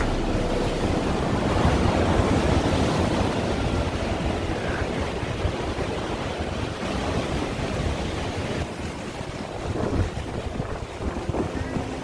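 Sea surf washing and breaking over rocks, mixed with wind buffeting the microphone, a steady rushing noise with a low rumble that eases off somewhat in the second half.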